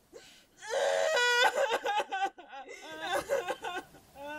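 A person crying out in distress: a breathy gasp, then a held high wail about a second in, followed by broken, wavering whimpering cries.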